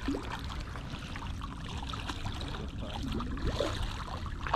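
Sea water sloshing against rocks and a hooked sea bass splashing at the surface, over a steady low rumble of wind on the microphone.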